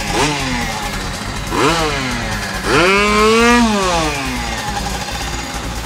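Small two-stroke moped engine idling and being blipped on the throttle: a quick rev at the start, another about one and a half seconds in, then a longer rev about three seconds in that holds for about a second before falling back to idle. Its exhaust has just been patched where it had a hole.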